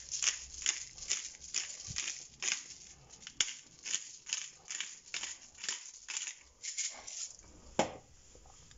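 Hand-twisted pepper mill grinding mixed peppercorns: a run of short gritty crunches, about two a second, one for each twist, stopping near the end.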